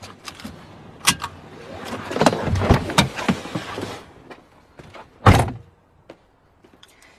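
Movement inside a car: rustling and light clicks, then one heavy car-door thump about five seconds in.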